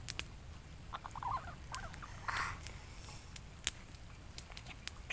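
Small handling noises: light scratchy rustles and a few sharp ticks as a plastic bag and a small bowl are handled, with one brief rustle about two and a half seconds in.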